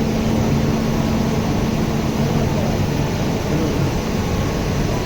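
Loud, steady machinery hum with a low steady tone under it; the tone drops out about two seconds in while the hum goes on.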